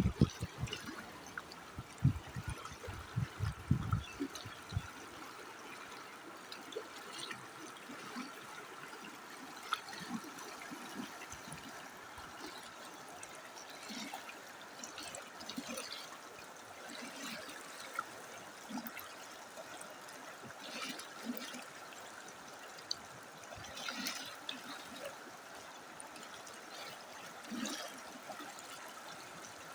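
Running water flowing steadily, with small splashes and drips scattered through it. There are a few louder low knocks in the first four seconds.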